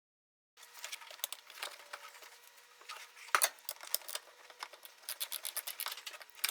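Hands working a bolt into the bottom of a car's radio support tower: irregular scraping and rubbing, with small metal clicks and one sharper click about a third of the way in.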